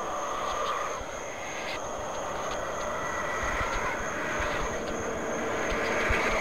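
A steady, dark droning ambience from a horror film's sound design, shifting slowly, with a few faint taps.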